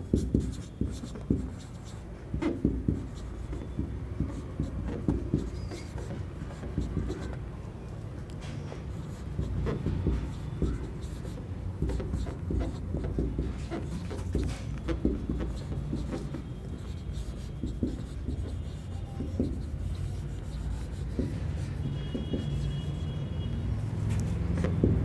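A marker writing on a whiteboard: irregular taps and short scratching strokes as words are written out, over a steady low background rumble.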